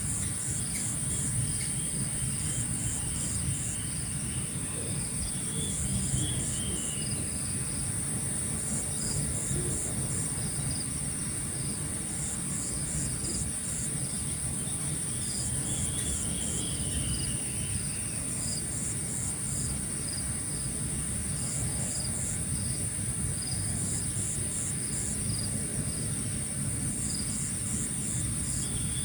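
Insects chirping in a steady high-pitched drone, with short pulses repeated in quick groups. Twice a falling call sounds over it, and a low rumble runs underneath.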